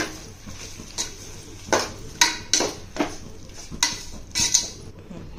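A spoon stirring a tomato and onion masala in a cooking pan, scraping and knocking against the pan in short strokes roughly every half second to second.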